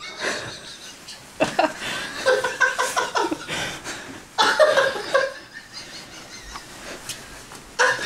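People laughing in two bouts, one about a second and a half in and a louder one around four and a half seconds in.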